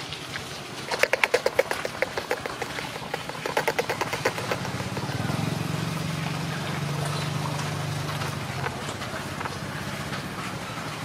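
A small engine running: rapid, uneven pulses for the first few seconds, then a steady low hum that fades near the end.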